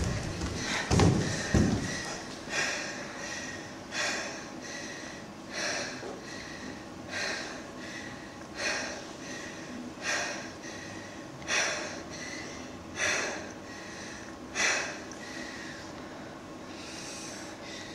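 Dancers' loud, sharp breaths, one about every one and a half seconds: the anxious, repeated breathing that is part of the OCD-themed choreography. The breaths stop a few seconds before the end. Two low thuds come about a second in.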